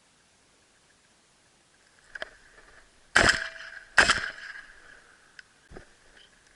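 Two shotgun shots fired in quick succession, under a second apart, at a quail flushed in front of a pointing dog.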